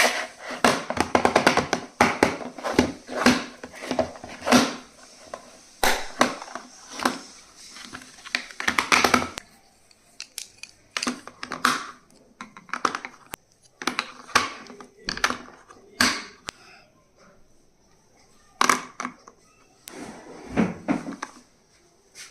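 Pencil box and stationery being handled and opened: a run of clicks, taps and rustles, dense for the first nine seconds, then sparser and more spaced out.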